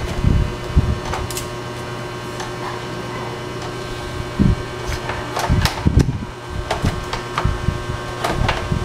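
Scattered clicks and knocks from an amplifier's sheet-metal chassis and front panel being handled and fitted together. Under them runs a steady fan hum.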